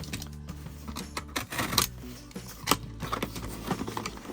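Cardboard and plastic toy packaging being handled: a string of clicks and rustles, the sharpest about a second and a half and two and a half seconds in, over background music.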